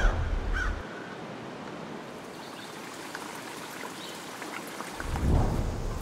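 Woodland ambience: an even hiss of air with scattered short bird chirps. A low rumble dies away in the first second, and another low swell rises briefly about five seconds in.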